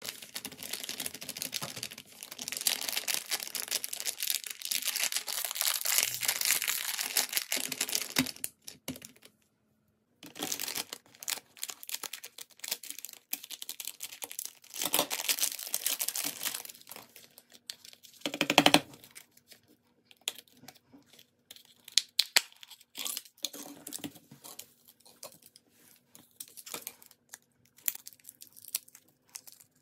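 Plastic candy wrapper crinkling and tearing as it is handled and cut open with scissors, in long dense stretches of rustling, with a short loud squeak about two-thirds of the way through. Later come scattered clicks and crackles of a small plastic tray and its film lid being peeled.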